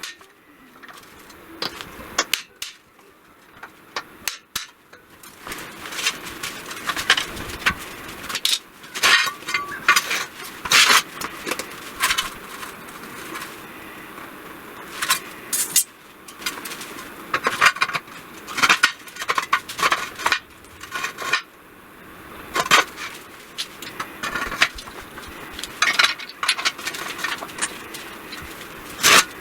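Irregular metal-on-metal clanks and taps, some ringing briefly, as steel parts are struck or handled.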